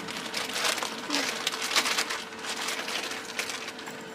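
Irregular rustling and crinkling from potting mix and its plastic bag being handled while potting a plant.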